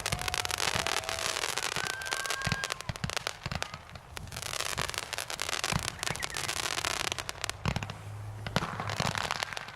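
Consumer aerial fireworks going off in a rapid barrage: dense crackling stars with scattered deeper thumps of shells bursting.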